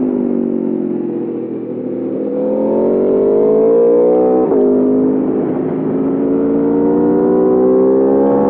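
2021 Aprilia RSV4 Factory's V4 engine under a rider's throttle: the revs fall away, then climb hard through a gear, drop sharply at an upshift about four and a half seconds in, and climb again.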